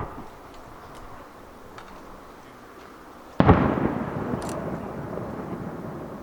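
Aerial firework shells bursting: a sharp bang at the start, then a louder bang about three and a half seconds in whose echo rumbles and slowly fades.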